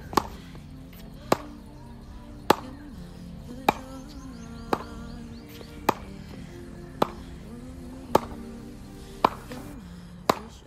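A cricket ball bounced repeatedly on the face of a Spartan cricket bat, about ten sharp knocks evenly spaced about once a second: the bat's ping test, the knock of ball on the willow. Background music plays underneath.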